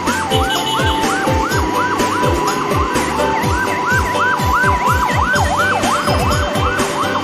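Electronic dance-music track with a fast kick-drum beat, carrying a siren-like wail that rises and falls about three times a second over a held, stepping horn-like tone.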